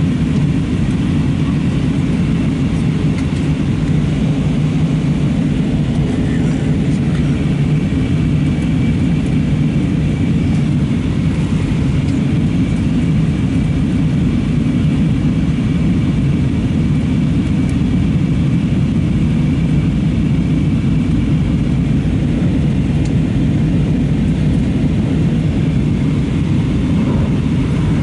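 Steady cabin noise inside an Airbus A320-232 on descent: rushing airflow and its IAE V2500 engines, a low, even roar.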